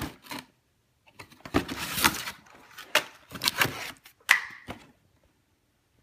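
Cardboard box being rummaged by hand: flaps and inserts scraping and rustling, with sharp crackles and knocks, stopping about a second before the end.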